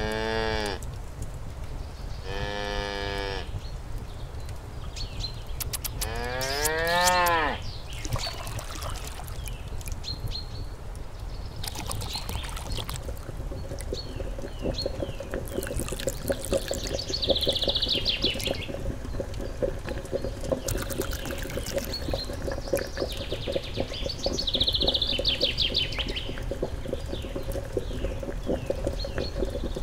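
Cow mooing three times in the first eight seconds, the third call the longest, rising and then falling in pitch. Birds chirp on and off after that.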